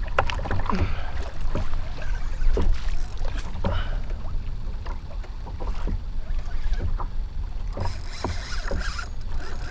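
Choppy water lapping and slapping against a plastic kayak's hull, with a low wind rumble on the microphone and scattered short knocks. A brief hiss comes about eight seconds in.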